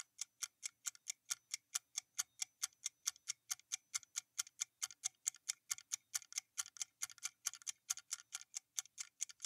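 Clock-style ticking sound effect of a quiz countdown timer: short, even ticks at a little over four a second, steady throughout.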